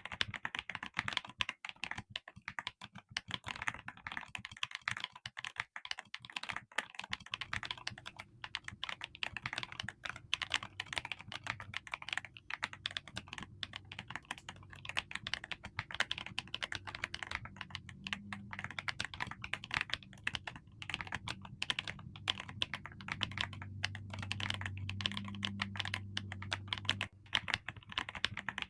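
Continuous fast typing on a gasket-mounted mechanical keyboard with creamy linear switches and glossy jelly keycaps, a dense run of keystroke clicks with a deep, clean, poppy sound. A faint low hum joins after about seven seconds.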